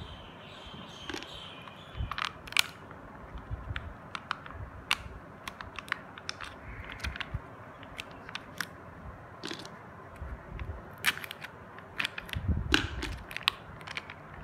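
Foil seal of a plastic peanut butter tub crinkling and crackling in irregular clicks as it is peeled back by hand, with a few louder handling knocks near the end.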